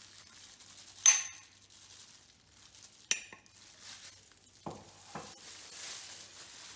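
Steel ladle clinking sharply against a container about a second in and again about two seconds later, then two softer knocks and a faint rustle as chopped microgreens are scooped into a bowl of vegetables.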